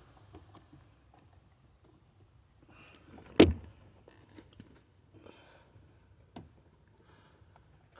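Faint handling and rustling at a car's brake light switch and wiring under the dashboard, with one sharp click about three and a half seconds in and a lighter click near the end.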